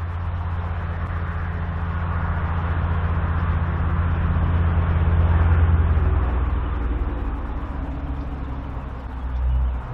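A motor engine passing by: a low, steady hum that grows louder to a peak a little past halfway, then fades.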